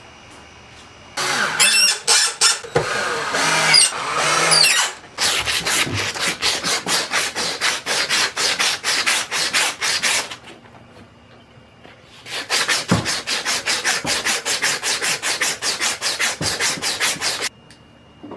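Quick rhythmic rubbing strokes of a hand back and forth over a sandpaper disc, about four strokes a second, in two runs of about five seconds each. Before them come a few seconds of squeaky scraping.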